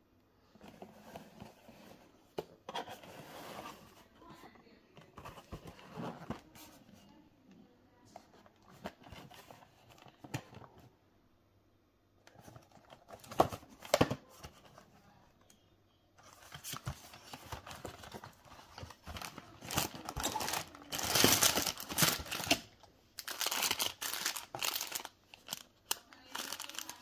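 A cardboard sweets box being handled and its perforated tab torn open, with sharp tearing snaps about halfway through. Then clear plastic sweet wrappers crinkling steadily, loudest about three-quarters of the way in.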